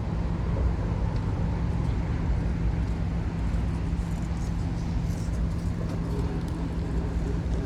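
Steady low rumble of vehicles, with a constant low hum underneath.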